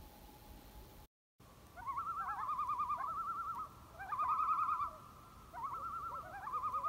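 Common loons giving their quavering tremolo call in three bouts, the first starting about two seconds in, with a steady high tone underneath.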